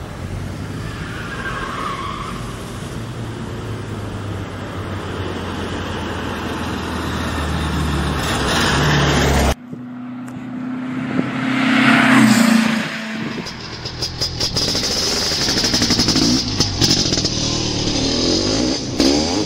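Car engine running and growing steadily louder, cut off abruptly about ten seconds in. Then a vehicle passes, its engine note swelling to a peak about twelve seconds in before fading into steady traffic-like noise.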